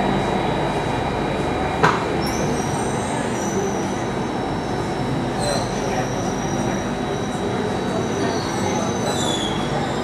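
SMRT C830 metro train running and pulling into a station, heard from inside the car: a steady rumble of wheels on rail, one sharp click about two seconds in, then high-pitched wheel squeal and whining tones, some falling in pitch near the end.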